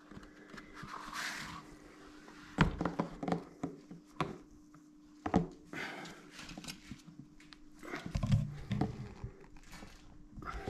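A large air filter element being worked into its housing on a tractor: rubbing and scraping as it slides in, with a few sharp knocks and a heavier bump about eight seconds in.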